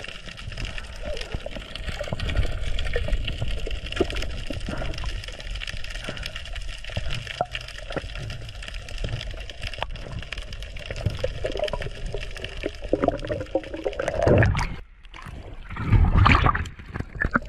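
Underwater water noise around a camera housing as a spearfisher swims, with small clicks and gurgles. Just before 15 s it cuts out briefly, and from about 16 s water sloshes and splashes loudly as the camera breaks the surface.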